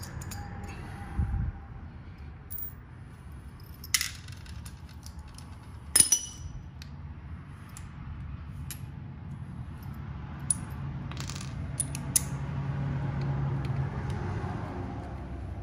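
Small metal tools and bolts clinking as they are handled, with two sharp metallic clinks about 4 and 6 seconds in and lighter ticks later on.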